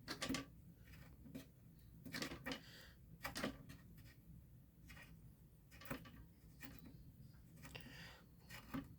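Faint, scattered clicks and knocks from hardware being handled while a fire-alarm pull station is taken apart, with screws and parts tapping against each other and the mounting.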